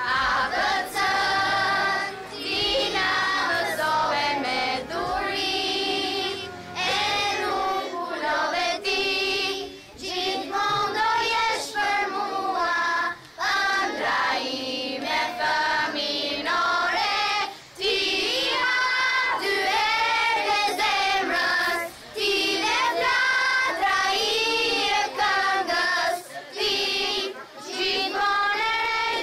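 Children singing a song, phrase after phrase.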